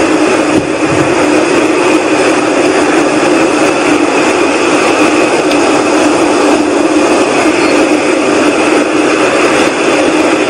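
A loud, steady whooshing drone of unidentified origin: an even hiss with a low hum running under it. The recordist takes it for one of the unexplained 'strange sounds' and says it should not be audible so close.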